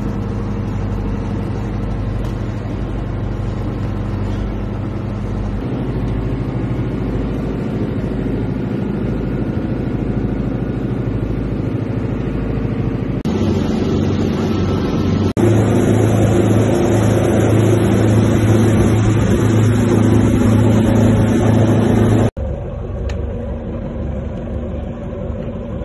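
Motorboat engine running steadily while the boat is underway, with rushing wind and water noise over it; it gets louder about halfway through. Near the end it drops suddenly to a quieter, steady background.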